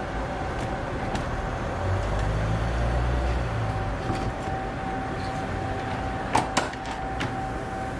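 Waffle-shop ambience: a steady hum with a constant whine. A low rumble comes in about two seconds in, and two sharp clacks come close together about six and a half seconds in.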